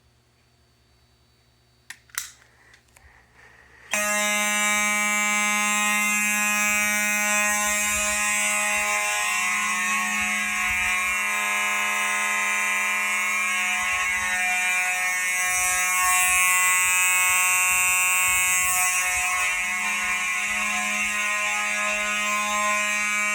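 A couple of clicks about two seconds in, then about two seconds later a fire alarm starts sounding a steady, continuous tone, very loud. It is the panel going into alarm after the heat element of a detector has been heated.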